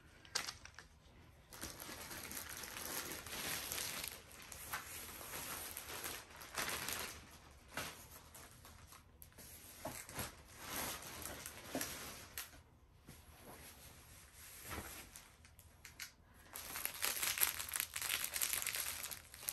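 Clear plastic wrapping on a rolled diamond painting canvas crinkling and rustling as it is handled and pulled off, in uneven stretches with short pauses, louder near the end.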